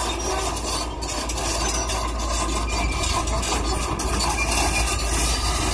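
Diesel engine of a Hitachi hydraulic excavator running steadily, with a couple of faint knocks.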